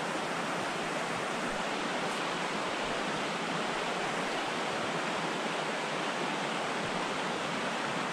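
Shallow, rocky creek water running steadily over stones.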